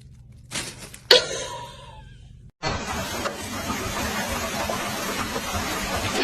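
A cat's sneeze, a short sharp burst about a second in. From about two and a half seconds a steady rushing noise fills the rest.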